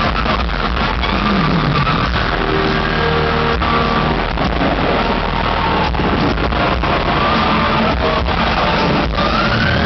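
Thrash metal band playing live at full volume, heard from within the crowd: distorted electric guitars over fast, pounding drums, with a few held and sliding guitar notes.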